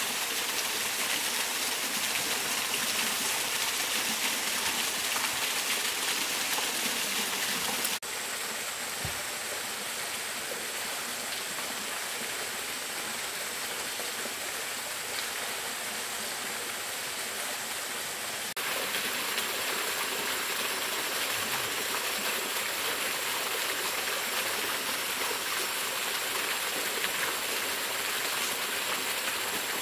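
Steady rush of a stream and waterfall. It drops somewhat in level about eight seconds in and comes back up about ten seconds later.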